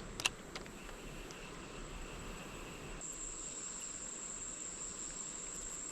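Insects trilling: a steady, high continuous tone that grows louder about three seconds in. A single sharp click comes just after the start.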